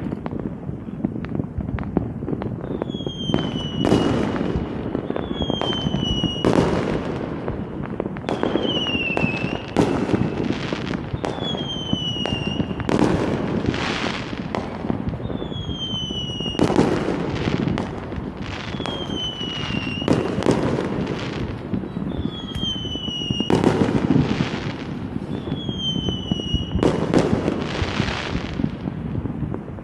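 Fireworks going off in a dense, continuous run of bursts and crackles. Over it, a short falling whistle repeats about every two to three seconds.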